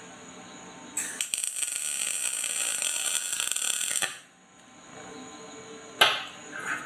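MIG welder arc crackling steadily for about three seconds as it lays a tack weld on a conduit steering wheel, starting about a second in and cutting off sharply. A single sharp knock follows near the end.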